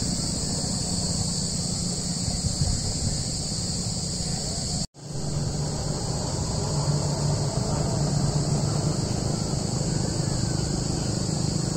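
A steady, high insect chorus over the low rush of tubewell water flowing along a paddy-field irrigation channel. The sound cuts out for an instant about five seconds in.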